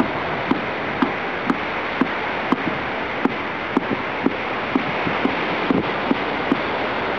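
Jet airliner taking off at full thrust, its engines making a steady, even roar as it lifts off and climbs away, with faint sharp ticks about twice a second.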